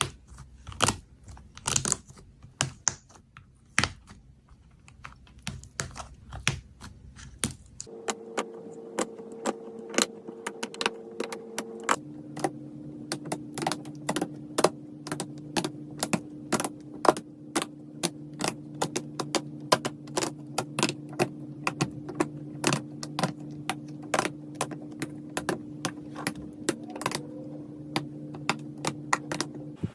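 Wax-coated slime being pressed and worked, giving dense, irregular crisp clicks and crackles like fast typing. From about eight seconds a steady low hum runs underneath, shifting in pitch a few seconds later.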